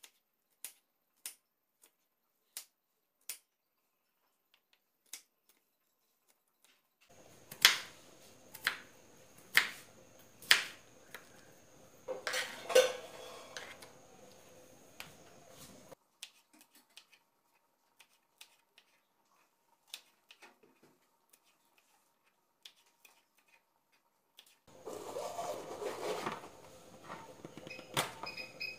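Kitchen knife chopping on a plastic cutting board: spaced single taps at first, then louder knocks and clatter from handling kitchenware, in two busier spells around the middle and near the end.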